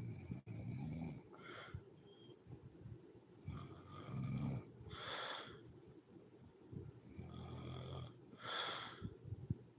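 A sleeping woman snoring, three snoring breaths about three and a half seconds apart. Each is a low snore followed by a short breathy huff of air.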